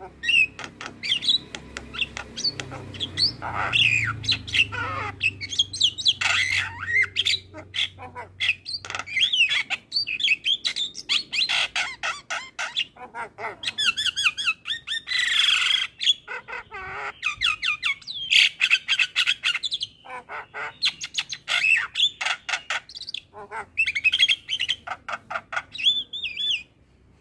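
Javan myna (jalak kebo) singing a long, varied run of rapid chattering phrases, whistles and harsh squawks. The song breaks off shortly before the end.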